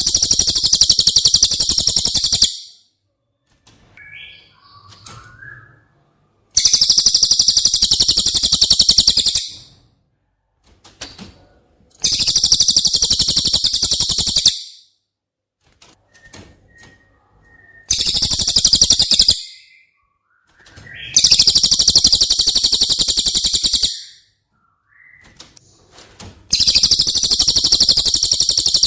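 Cililin bird song: a very high-pitched, rapid rattling trill lasting two to three seconds, given six times a few seconds apart, with softer short calls in between.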